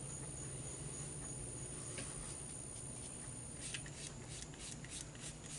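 Paintbrush working acrylic paint onto acrylic paper: soft brushing, then a quick run of short scratchy strokes in the last couple of seconds, over a steady low hum and a thin high whine.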